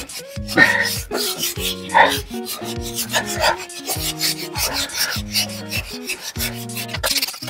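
Wet sanding of cured car body filler with sandpaper and water: repeated rubbing strokes, the fine smoothing stage that makes the filler flat before primer. Background music plays under it.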